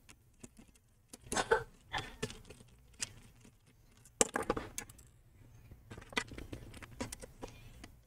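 Small metal precision screwdriver clicking and scraping in the screw heads as screws are backed out of a laptop's rear edge: scattered small clicks and taps, with a faint run of scratchy ticks in the last few seconds.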